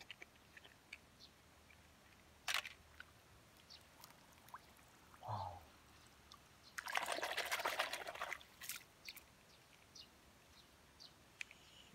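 A hand splashing and sloshing in shallow muddy water, water trickling off it. There is a short splash about two and a half seconds in, and a longer burst of splashing around seven to nine seconds in.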